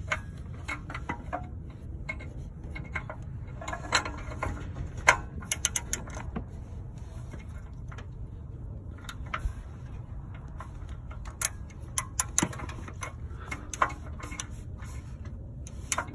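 Scattered metallic clicks and clinks, some in quick bunches, from a socket wrench turning and unscrewing an old oxygen sensor from the exhaust. A steady low rumble runs underneath.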